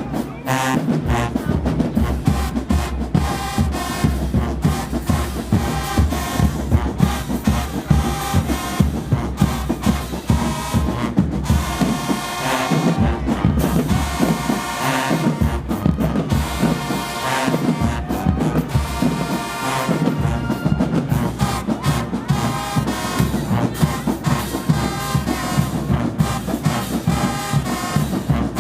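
High school alumni marching band playing a crowd-pleaser tune, loud and brass-led, with trombones and trumpets to the fore.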